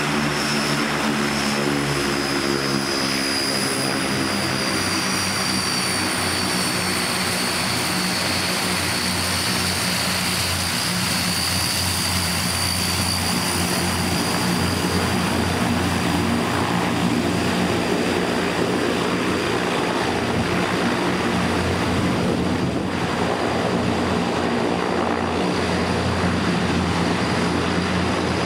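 Antonov An-32's two AI-20D turboprop engines running as the aircraft taxis past: a steady propeller drone under a high turbine whine that slowly falls in pitch.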